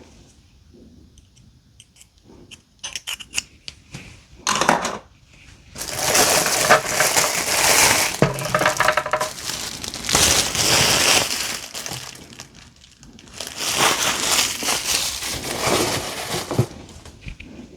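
Packaging being unwrapped and handled: a few light clicks and knocks, then two long spells of crinkling and rustling as the organizer's parts are taken out of their wrapping.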